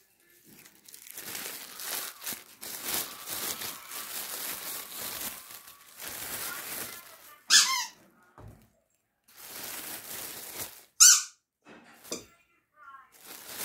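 Dog chewing on a rubber squeaky toy, which gives two loud, short squeaks that slide down in pitch, one just past halfway and one near the end, with a couple of fainter squeaks after. Before the squeaks comes a stretch of rustling.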